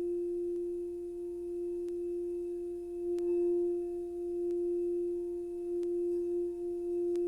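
A singing bowl ringing with one steady, sustained tone and a faint higher overtone. Faint light ticks come at fairly even intervals, roughly every second and a half.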